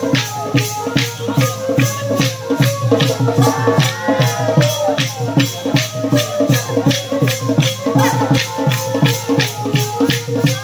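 Fast live folk band music accompanying a stick dance: drums under a sharp, even clacking beat about three to four times a second, with a held drone and a wavering melody line.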